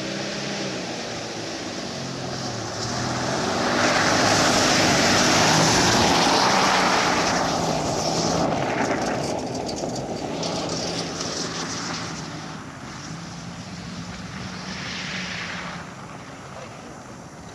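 A car's engine revving hard as it is driven fast on a dirt track, with the tyres spraying loose dirt and gravel. It is loudest about four to seven seconds in as the car passes close, then fades as it drives off, swelling briefly again near the end.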